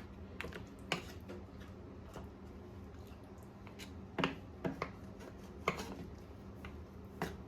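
A spoon clinking and scraping against the pot as the goat stew is stirred after hot water was added, about half a dozen short knocks at uneven intervals. A steady low hum sits underneath.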